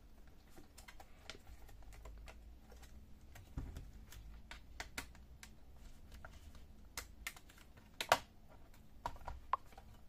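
Plastic clips of a Lenovo V330-15IKB laptop's bottom panel clicking loose as a plastic opening pick is worked along the case seam: a dozen or so scattered sharp clicks, the loudest about eight seconds in.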